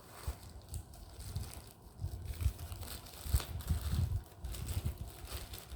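Packing material rustling and crinkling as a crystal is unwrapped and lifted out of its box, with irregular small clicks and soft handling knocks.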